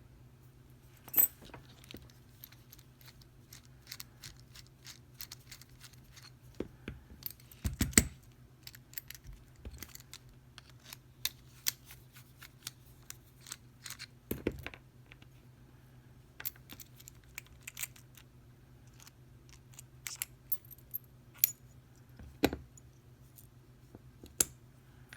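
Intermittent metallic clicks, clinks and a few louder knocks from small metal tools and lock parts being handled and set down, the loudest knock about eight seconds in. A steady low hum runs underneath.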